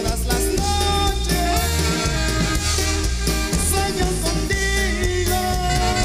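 Band music, an instrumental passage with a steady bass line, drums and held melody notes.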